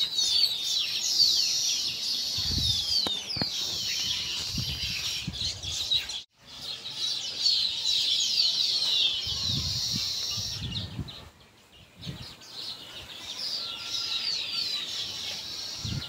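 Many zebra finches chirping together in a dense, busy stream of short high calls, with some low rumbling underneath. The sound breaks off for a moment about six seconds in and thins out briefly around eleven seconds.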